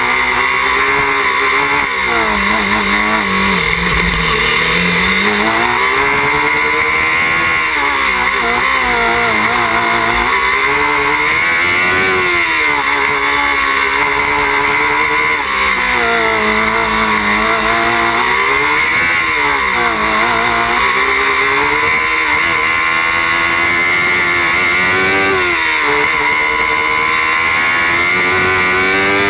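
Small open-wheel race car's engine heard onboard while lapping, revving up on acceleration and dropping back under braking every few seconds, running without cutting out.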